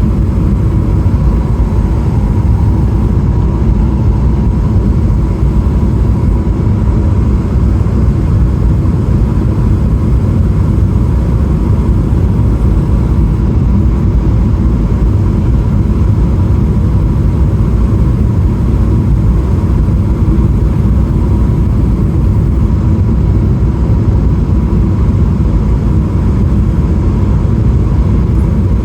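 Steady engine and airflow noise inside the cabin of a Boeing 777-300ER with GE90-115B engines. It is a constant low rumble with a thin steady hum near the top.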